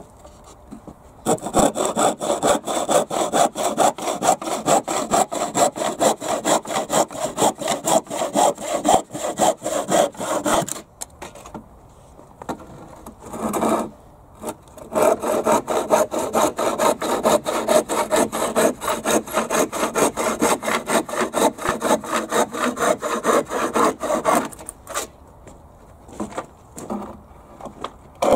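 Handsaw cutting through a wooden upright, fast even push-pull strokes in two long bouts with a pause of a few seconds in the middle, then a few scattered knocks near the end.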